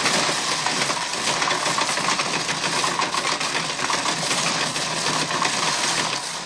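Slot machine paying out: a continuous clatter of metal coins dropping into the payout tray, dropping away near the end.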